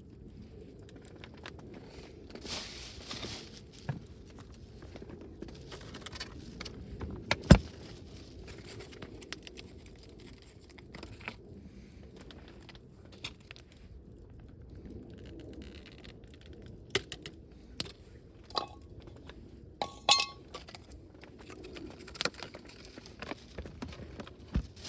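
Small hard objects, camp cookware or gear, being handled: scattered clicks and metal clinks with a sharp knock about seven and a half seconds in and a brief ringing clink near twenty seconds, over a low steady wind rumble.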